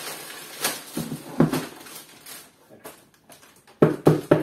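Rustling packaging as a plastic hard case is unwrapped and handled, with a few sharp knocks. Then small clicks, and a cluster of loud knocks near the end.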